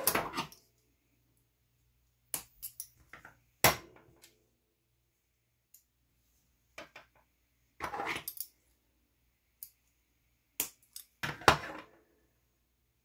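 Small plastic and metal RC suspension parts (ball links, rod ends and link rods) clicking and clattering as they are handled and set down on a workbench, in scattered irregular bursts.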